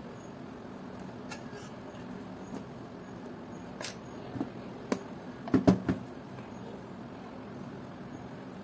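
Small tools and plastic parts being handled on a workbench: a few light clicks, then a quick cluster of louder knocks and taps about five and a half seconds in.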